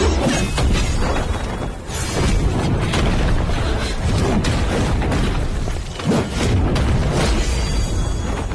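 Animated magic-battle sound effects: a run of heavy booms and crashing impacts, a new hit about every two seconds.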